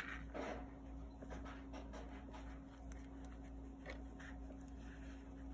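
Faint scratching and rustling of acrylic yarn being drawn through a crocheted piece and a darning needle being handled, with a sharp click at the very start.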